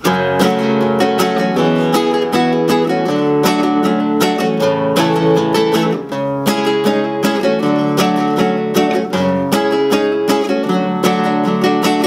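Nylon-string classical guitar with a capo, strummed in a steady rhythm through a verse's chord progression of open chords, a B minor barre and sus2 variations. The strumming breaks briefly for a chord change about halfway through.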